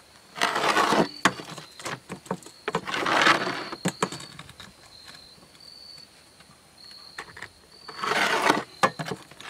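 Utility knife scoring an asphalt roofing shingle along a metal straightedge, three rasping cutting strokes about half a second, three seconds and eight seconds in, with small clicks as the straightedge and shingle are handled.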